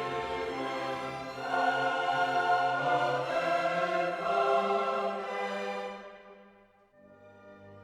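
Background orchestral music with choir-like voices. It swells, fades away about six seconds in, and a quieter passage begins near the end.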